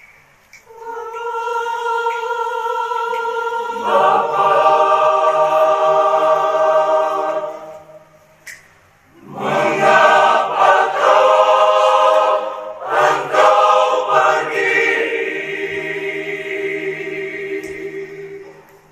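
Choir singing a slow liturgical hymn in long held notes. It comes in two phrases with a short break about eight seconds in, the voices growing fuller partway through each phrase and fading near the end.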